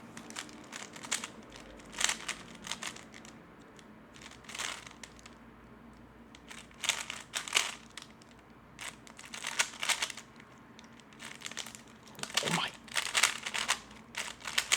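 3x3 Rubik's Cube layers being turned rapidly by hand, with plastic clicking and clacking in flurries of a second or so separated by short pauses.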